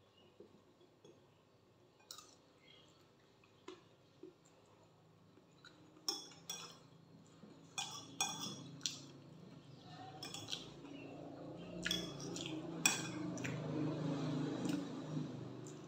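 Metal spoon clinking and scraping on a plate while someone eats, with irregular sharp clinks that come thicker and louder from about halfway through. A low background noise swells over the last few seconds.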